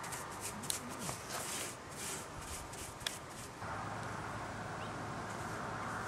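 Paintbrush scratching over a corrugated metal roof as wood stain is brushed on, a run of short scratchy strokes. About three and a half seconds in, the strokes give way to a steady low hum.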